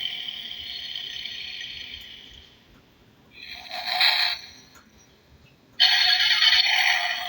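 Electronic toy car running after being switched on, with freshly sanded battery terminals. Its sound fades out, returns briefly in the middle, and then cuts back in suddenly near the end.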